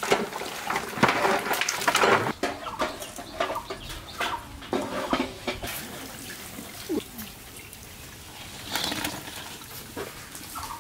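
Luchi deep-frying in oil in a cast-iron karahi, with a slotted metal spoon clinking and scraping against the pan as the fried bread is lifted out; the clinks are thickest in the first two seconds. Birds call in the background.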